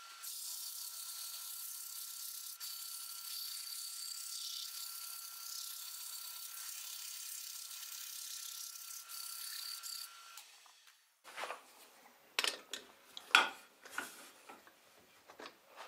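Sandpaper held against a wooden knob spinning on a wood lathe: a steady hiss over a faint, steady machine whine. Both stop about ten seconds in, and a few scattered knocks and clicks of handling follow.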